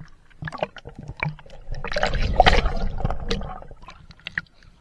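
Water splashing and sloshing with scattered knocks, swelling to a loud rush midway before fading.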